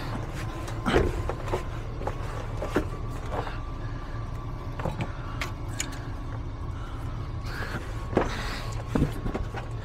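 Scattered clicks and knocks of parts and tools being handled, over a steady low hum.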